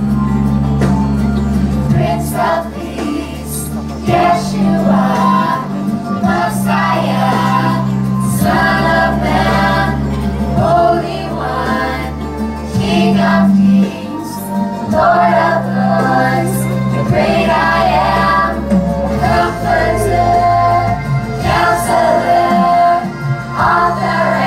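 A girl singing a song over backing music with long held low notes.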